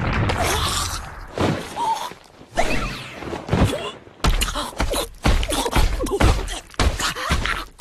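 Cartoon fight sound effects: a kick lands with a thud, and from about halfway a rapid string of thumps and whacks follows as one character beats another. Short cries come in between.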